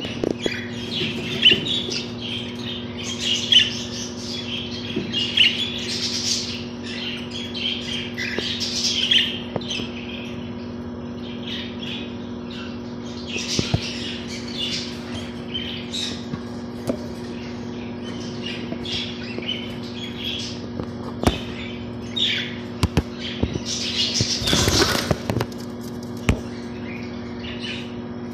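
Budgerigars chattering with quick squawks and chirps, over a steady low hum, with a short rush of noise a few seconds before the end.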